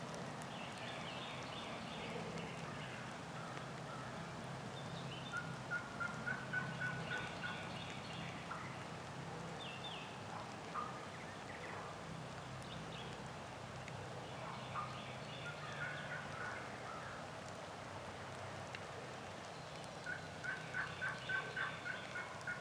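Wild turkeys calling in the distance: a run of about eight quick, evenly spaced notes about five seconds in, a few single calls, and another run near the end.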